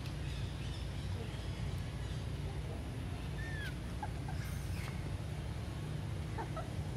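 Steady low outdoor rumble with a few faint, short high animal calls on top, one about halfway through falling in pitch.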